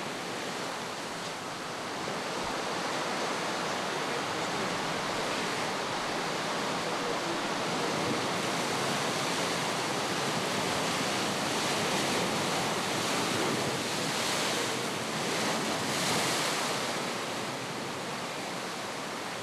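Ocean surf breaking and washing over a black lava-rock shore: a continuous rush of white water that swells louder about halfway through, with surges near the end.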